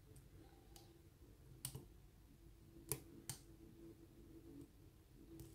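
Faint sharp clicks from a lock pick working the pins of a pin-tumbler lock cylinder under tension: a pair near two seconds in, the loudest about three seconds in and one more just after.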